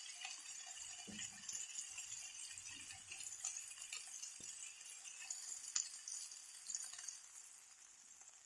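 Faint sizzling of chicken shish tawook in a hot grill pan, with scattered light clicks and knocks as the cooked pieces are lifted out.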